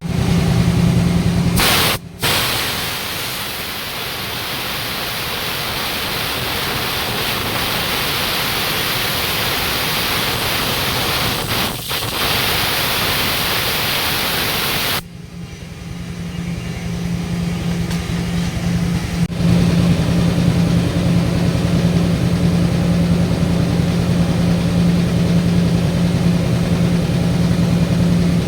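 Flux-cored arc welding a capping pass: a steady crackling hiss of the arc for about thirteen seconds, briefly broken near the middle. It stops suddenly, and a steady low machine hum carries on.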